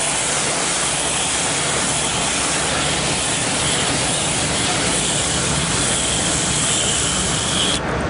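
Garden hose spray nozzle jetting water onto an air-conditioner condenser coil, a steady hiss of spray hitting the fins as the dirty coil gets its first rinse. The spray cuts off just before the end.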